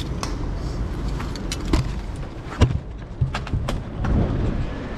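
Sharp clicks and knocks, the loudest about two and a half seconds in, as a track bike and its handlebar-mounted camera are jostled while the rider gets moving; near the end wind starts rushing on the microphone.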